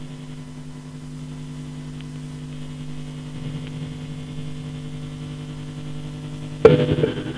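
Harsh ambient noise track: a steady drone of several layered low tones, broken near the end by a sudden loud burst of dense harsh noise that keeps going.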